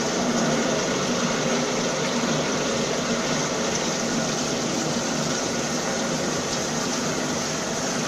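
Oil refinery equipment running with a steady mechanical hum and rushing noise, while liquid pours from a pipe into the open refining tank.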